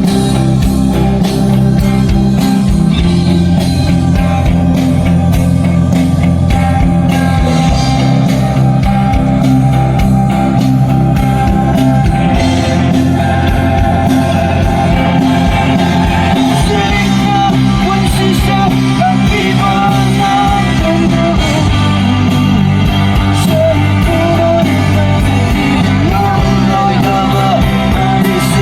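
Rock band playing live at a sound check: guitars over bass and drums, with a voice singing in the second half.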